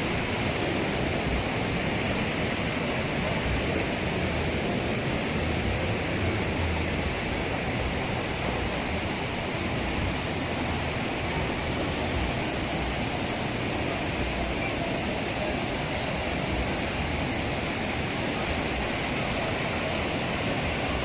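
Jumog waterfall pouring: a steady, unbroken rush of falling water.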